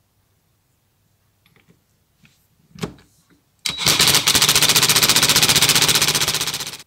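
Cordless impact wrench hammering rapidly for about three seconds as it drives the pulley nut tight on an alternator, then cutting off abruptly. Before it starts, a few small clicks and a knock come from the socket and tool being set on the nut.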